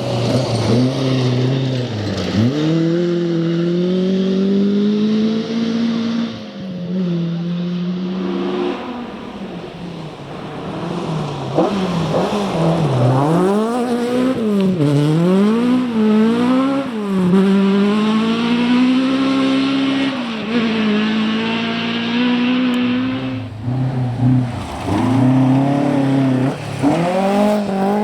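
Rally car engine driven hard, its revs climbing and falling sharply over and over as it shifts gear and lifts for corners, with a few quick up-and-down swoops about halfway through.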